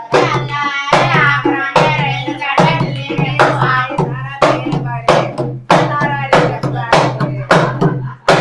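Voices singing a folk song to a dholak barrel drum and hand claps, with a steady beat striking about every 0.6 seconds.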